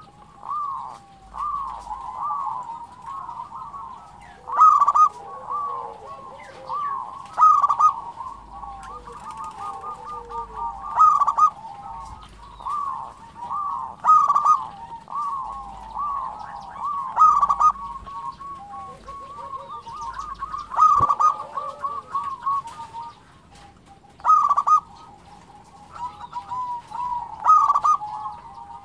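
Zebra doves (local perkutut) cooing: a rapid, trilled staccato song around a loud phrase that repeats about every three seconds, with softer overlapping coos in between. A single sharp click comes about two-thirds of the way in.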